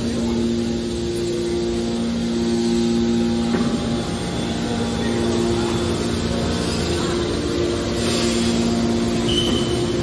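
Hydraulic power unit of a scrap metal baler running: its electric motors and hydraulic pumps give a steady hum with two held tones over a mechanical noise.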